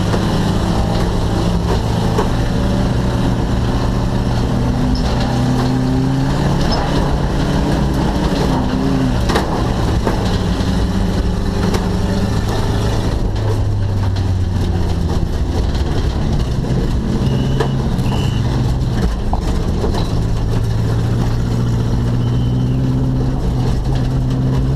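Stock car engine running under racing load, heard from inside the stripped cabin. It runs loud and continuous, its pitch rising and falling as the driver accelerates, lifts and shifts.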